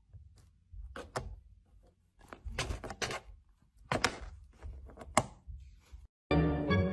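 Scratches and sharp taps on a cardboard box from a cat inside clawing at a slot, in short bursts about a second apart. Music starts near the end.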